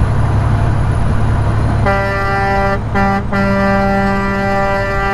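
A vehicle horn sounding one steady low note, starting about two seconds in, broken twice briefly and then held for about two seconds before cutting off. Underneath is the steady rumble of engine and road noise inside the vehicle's cab.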